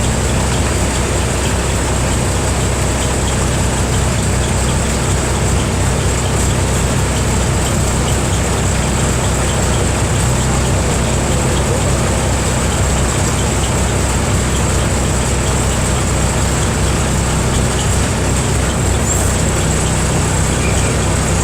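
Mercedes-Benz OF 1318/51 bus's diesel engine running at a steady, even speed, with no revving.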